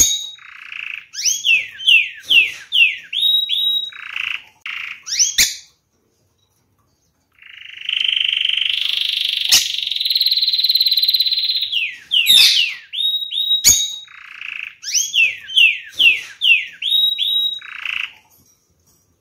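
Canary singing: fast runs of whistled notes sliding down in pitch, broken by short buzzy notes. After a pause of about two seconds comes a long rolling trill lasting several seconds, and then the runs of sliding notes start again.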